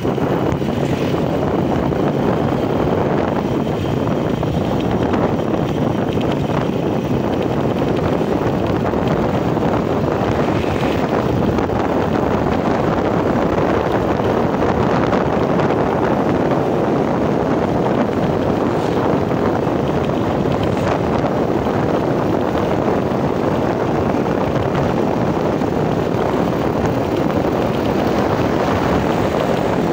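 Motorcycle riding along at steady speed: wind rushing over the microphone blends with the running engine and tyre noise, steady throughout.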